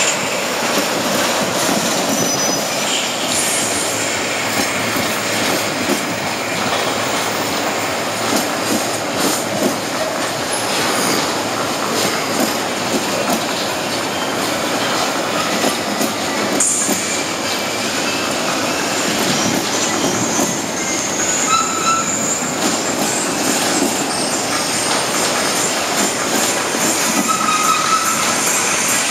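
Freight train of covered hopper wagons rolling past close by: a steady loud rumble of steel wheels on rail with rapid clicks over the rail joints, and brief high wheel squeals now and then.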